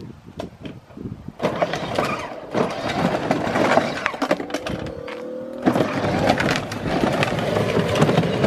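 Hard plastic wheels of a battery-powered ride-on toy car crunching and rattling over dry leaves and pavement. The rattling starts about a second and a half in, and a brief rising whine is heard about halfway through.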